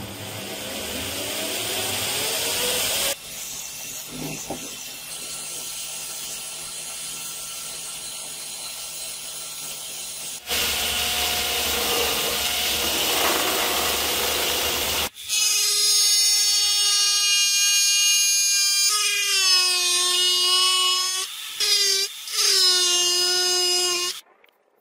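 A belt grinder motor on a variable-frequency inverter spins up with a rising whine, then runs with wood grinding against the sanding belt. About fifteen seconds in, a high-speed rotary tool with a small cutting disc takes over, a loud high whine whose pitch dips several times as it cuts into wood.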